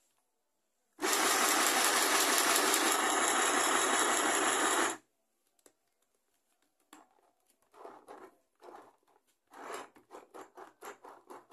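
Mini electric sewing machine running for about four seconds, stitching a seam in liganete (malha fria) knit fabric; it starts and stops abruptly. Afterwards come soft, scattered handling noises as the fabric is moved under the presser foot.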